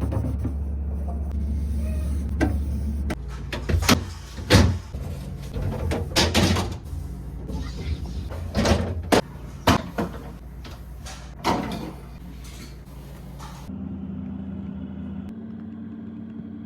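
A run of sharp knocks and clacks, about a dozen over ten seconds, as fridge drawers and shelves are handled and set down, over a steady low hum.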